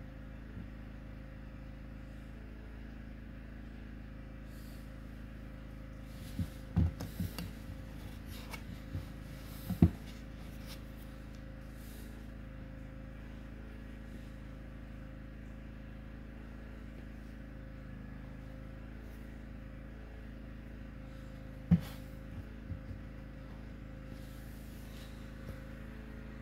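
Steady low hum of room tone with a faint constant tone. Over it come a few sharp handling knocks and taps, clustered about six to ten seconds in and once more about twenty-two seconds in.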